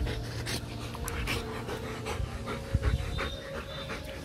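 White German Shepherd panting rapidly with its mouth open, close to the microphone, about two or three breaths a second. A couple of low thumps come about two-thirds of the way through.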